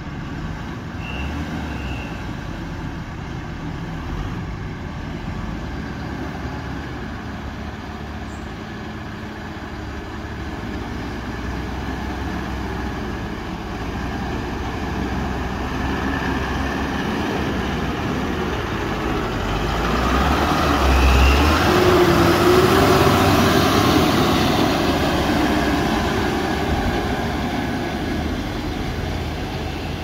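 Loaded tipper truck's diesel engine running as it drives along a dirt track and passes close by. It grows louder to a peak about two-thirds of the way through, then fades as the truck moves away.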